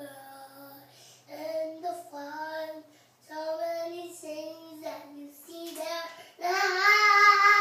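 A young child singing in short phrases with brief pauses, ending on a louder held note near the end.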